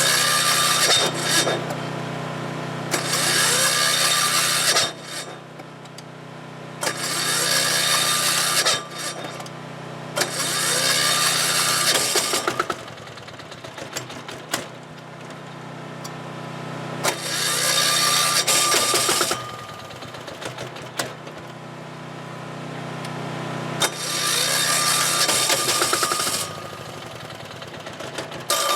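ETQ DG7250LE diesel generator's electric starter cranking the engine over and over in bursts of about two seconds, six or so attempts with pauses between, the engine not catching and running.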